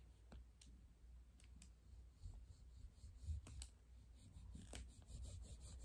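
Faint, scattered clicks and light scrapes of a knife cutting a chocolate bar in half on a tabletop.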